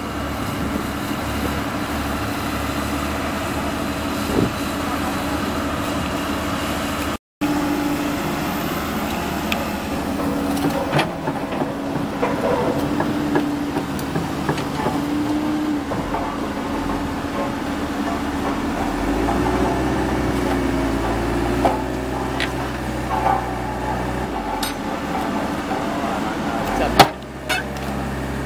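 Komatsu PC130F hydraulic excavator's diesel engine running steadily under working load as the boom and bucket move, with a pitched whine that comes and goes and wavers up and down, and a few short knocks.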